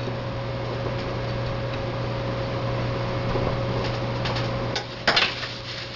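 Hands pressing raw chicken into a dry Parmesan-and-breadcrumb coating on a ceramic plate: soft crumbly scraping over a steady low hum. A few sharp clicks come near the end, the loudest about five seconds in.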